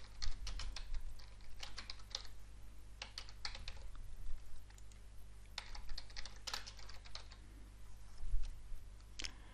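Typing on a computer keyboard: several short bursts of quick key clicks with pauses between them, over a low steady hum.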